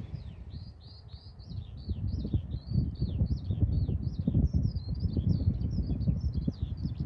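A songbird singing a continuous run of quick chirping notes, over low gusty wind buffeting the microphone that grows louder after about two seconds.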